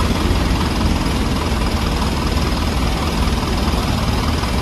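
Water tanker truck's engine idling steadily, heard close up.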